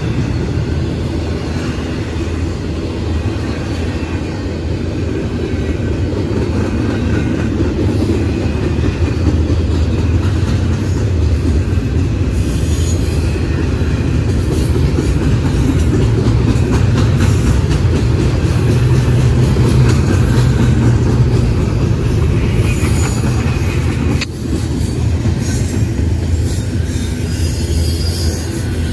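Double-stack intermodal train's well cars rolling past on steel wheels: a steady low rumble of wheels on rail, with brief higher-pitched wheel squeals a couple of times.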